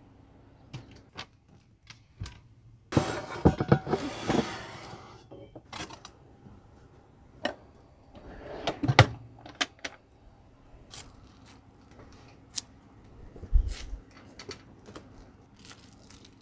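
Kitchen handling noises: scattered clicks and knocks, a burst of rattling about three seconds in, and metal utensils jangling as a drawer is pulled open and rummaged through around nine seconds in, with a dull thump a few seconds later.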